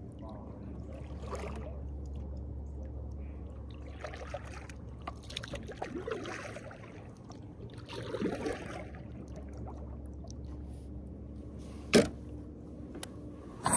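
Kayak paddle strokes: water swishing and dripping off the blade in three washes, over a steady low rumble. A single sharp knock near the end.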